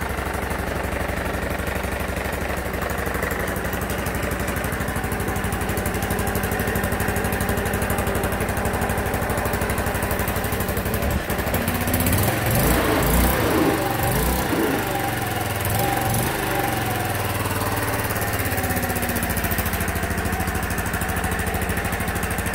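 A 1986 Honda Elite 150 scooter's single-cylinder four-stroke engine idling steadily, running again on a replacement carburetor instead of stalling. About halfway through, the revs rise and fall a few times, then it settles back to idle.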